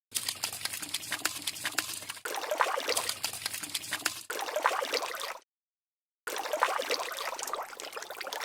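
Wet, crackly liquid sound effects, full of small clicks and trickles, in edited stretches that stop dead for about a second near the middle.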